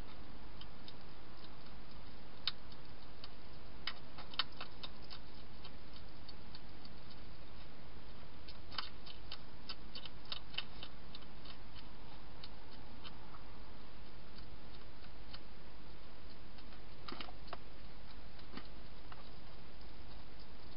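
Wild hedgehog crunching dry food inside a plastic feeding box: scattered sharp clicks in short clusters, about four seconds in, again around nine to eleven seconds, and near the end, over a steady hiss.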